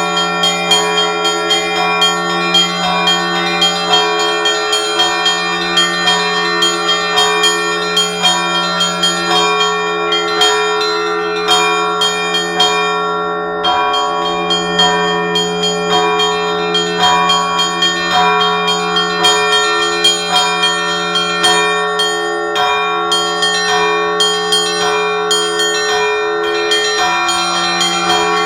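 Russian Orthodox church bells rung in a zvon: small bells struck in quick, rhythmic succession over the steady ring of larger, lower bells. The high bells drop out briefly about halfway through, then resume.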